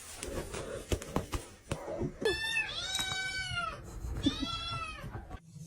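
A cat meowing twice: a long drawn-out meow about two seconds in, then a shorter one, each rising then falling in pitch. A few light knocks come before the meows.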